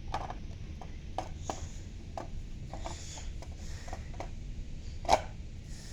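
Irregular light clicks and knocks of hard plastic fire alarm parts being handled and fitted, with a brief rub around the middle and one louder knock a little after five seconds.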